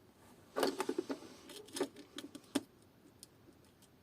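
Small hard objects being handled on a workbench: a quick run of light clicks and rattles that stops about two and a half seconds in.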